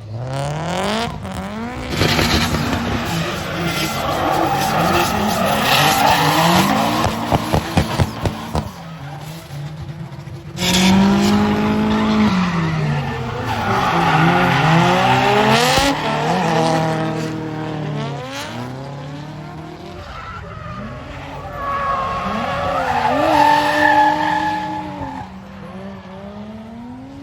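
Drift cars' engines revving up and down hard over tyre screech as the cars slide. The sound changes abruptly about ten and sixteen seconds in, where one clip gives way to the next.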